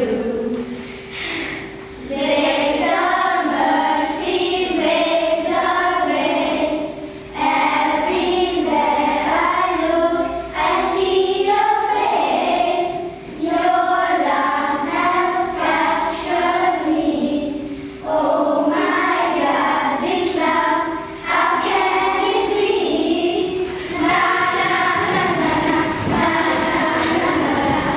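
A group of young children singing an action song together, in phrases a few seconds long with brief breaks between them.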